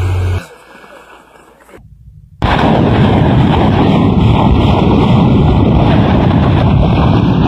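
A steady engine hum cuts off right at the start, and after about two seconds of quiet a loud, continuous rumble of explosions from a rocket artillery barrage sets in about two and a half seconds in.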